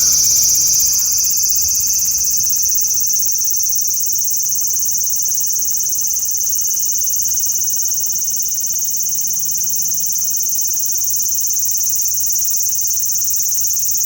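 Large brown cicada (aburazemi) calling: one loud, continuous high buzz that holds steady, easing slightly about a second in.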